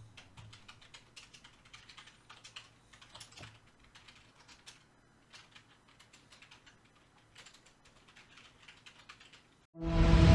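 Computer keyboard typing: irregular light key clicks, sparser in the middle. Near the end a loud rising whoosh with music cuts in abruptly.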